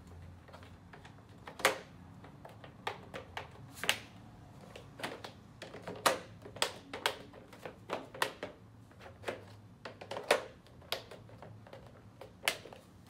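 Diamond-top interlocking plastic floor tiles pressed and snapped together by hand: an irregular run of sharp plastic clicks and taps, a few of them much louder than the rest.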